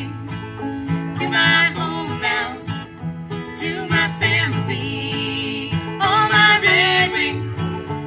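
An acoustic guitar and a banjo playing a bluegrass tune together, the guitar strummed and the banjo picked.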